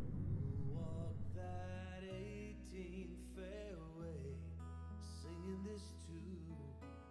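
Background music: a gently played guitar melody over held low bass notes.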